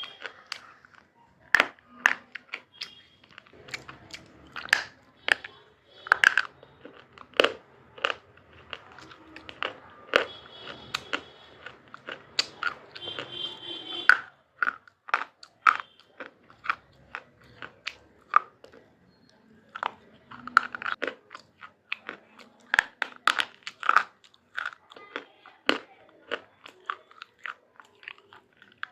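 Close-up biting and chewing of brittle white items: a dense run of sharp crunches at irregular intervals, with softer chewing between them.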